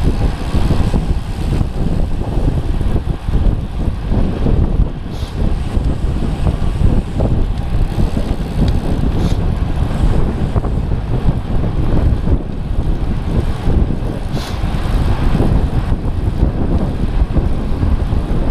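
Wind rushing over the microphone of a camera on a moving road bicycle: a loud, steady low rumble.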